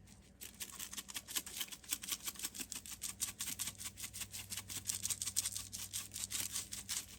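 Seasoning shaker shaken rapidly over food, a steady rattle of about six shakes a second.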